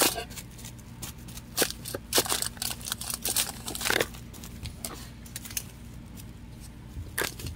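A plastic-wrapped kitchen sponge being dabbed onto a painted canvas, giving irregular crinkles and soft taps, mostly in the first half and again near the end.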